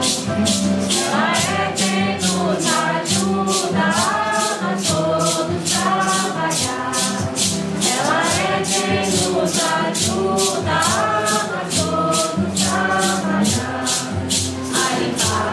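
A group singing a Santo Daime hymn, with maracas shaken in a steady beat of about three strokes a second.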